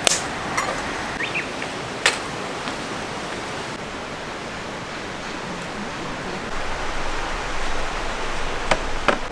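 A river's water rushing steadily, with a few sharp clicks or knocks over it, one about two seconds in and a pair near the end.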